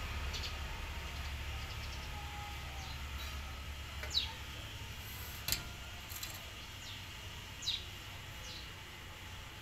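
A low rumble of passing traffic, fading away, with a few short, falling chirps from small birds and one sharp click about five and a half seconds in. No rooster crow.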